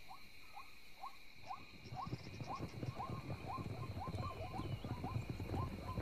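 Night bush soundscape: a steady high trilling of insects, a short animal call repeating about twice a second, and from about a second and a half in a quick patter of low thuds that grows louder.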